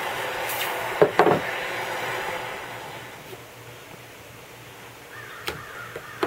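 Hand-held gas torch hissing steadily as a Sawzall blade is heated to hardening temperature, the hiss dying away over the middle. About a second in come two short, loud sizzles as the hot blade is quenched in water.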